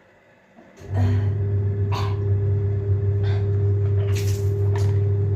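A small electric machine switches on about a second in and runs with a steady low hum, with a few light clicks over it.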